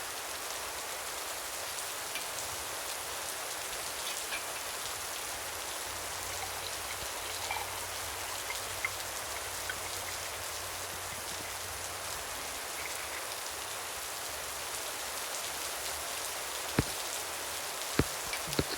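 Steady rain falling, an even hiss throughout, with three sharp knocks near the end.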